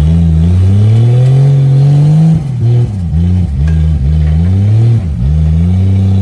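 Off-road 4x4 race truck engine revving hard and loud. The revs climb for about two seconds, then drop and surge back about five times in quick succession, and settle into a steady high rev near the end.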